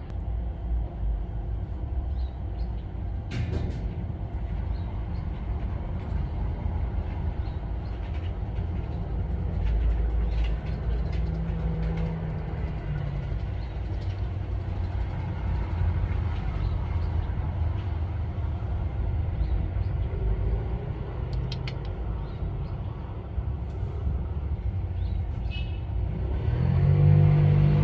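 Steady low rumble of outdoor urban background noise, like distant road traffic, with a few faint clicks.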